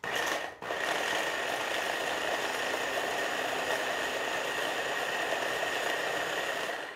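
Electric hand blender with its chopper attachment running, chopping tomatoes into a purée: a steady motor whine with a short break about half a second in, stopping near the end.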